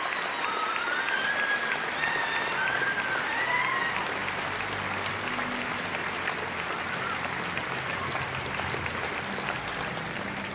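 A large hall audience applauding, a dense wash of clapping, with a few voices calling out above it in the first few seconds. The applause slowly dies down while music starts low underneath about halfway through.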